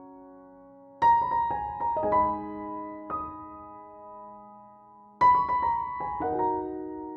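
Background piano music: a slow phrase of notes struck about a second in and again about five seconds in, each chord ringing and fading away.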